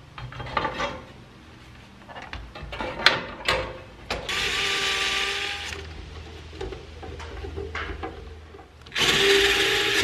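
Cordless DeWalt drill/driver running in two short spurts, driving rough-thread self-tapping screws into a garage door opener's housing: one spurt about four seconds in lasting a second and a half, the second starting near the end. Before the first spurt there are light clicks and knocks of the cover being fitted.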